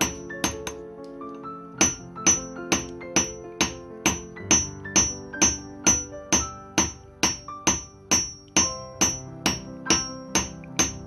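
Hammer blows on a metal strip held against a steel anvil, each a sharp ringing clang, coming steadily about two a second after a short pause about a second in. Background music with mallet-like notes plays underneath.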